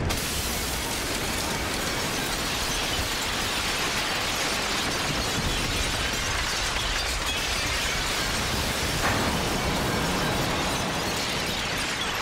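A collapse: a sudden, dense, continuous crash of falling debris and breaking glass.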